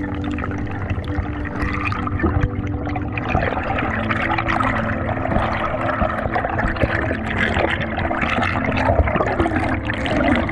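Water rushing and bubbling against an underwater camera, crackly and louder from about three seconds in, over soft background music with long held notes.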